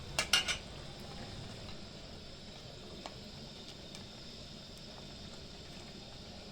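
A few quick clicks or knocks in the first half-second, then a faint steady hiss.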